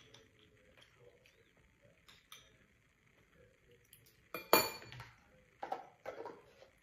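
Metal spoon clinking against a ceramic rice bowl: a few faint ticks, then a loud ringing clink about four and a half seconds in, and a couple more knocks near the end.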